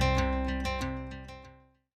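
Instrumental music of quickly repeated plucked notes over a held chord, fading out and stopping about a second and a half in.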